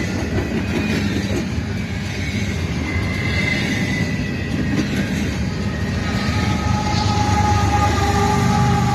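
Double-stack intermodal container cars rolling past close by: a steady rumble and clatter of steel wheels on rail with thin squealing tones. In the last few seconds it gets louder as a Kansas City Southern de México GE ES44AC locomotive, running as a mid-train distributed power unit, comes past.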